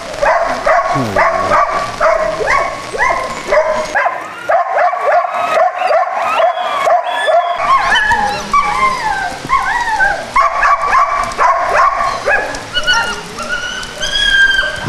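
Several dogs barking and yelping over one another, with drawn-out high whines near the end.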